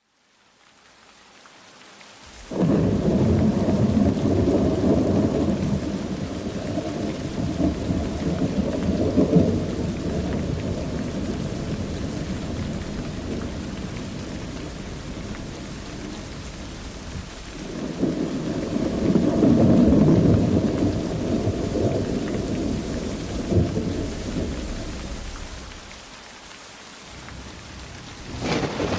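Thunder rolling over steady rain: a long rumble breaks in about two seconds in and slowly dies away, a second roll swells past the middle, and another begins near the end.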